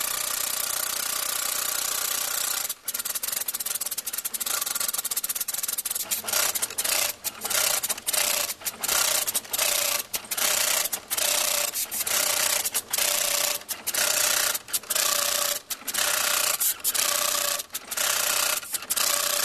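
Robot-mounted hand-tufting gun running, a steady rasping buzz as it punches yarn into the backing cloth. From about six seconds in it stops and restarts briefly once or twice a second.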